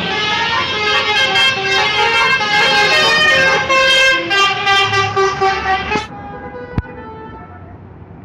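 Telolet bus horn, a bus's multi-tone musical horn, playing a tune of stepped notes for about six seconds, then cutting off suddenly. A low engine rumble remains, with one sharp click about a second after the horn stops.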